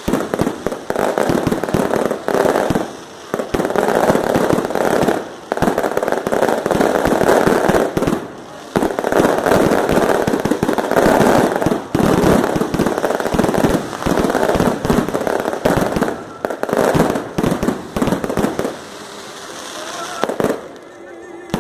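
Fireworks display: rapid, dense volleys of bangs and crackles in loud clusters a few seconds long with brief lulls, easing off near the end.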